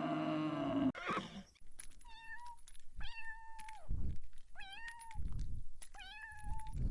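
Domestic cat meowing four times, each meow rising briefly and then holding a steady pitch, with dull low thumps between the calls. About a second in, the tail of a louder, deeper animal sound cuts off.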